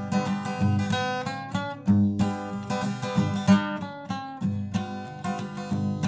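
Acoustic guitar background music, strummed and picked.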